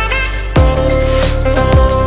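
Background music: an electronic track with deep bass hits that drop in pitch, about two a second, over held synth notes and a fast high ticking beat.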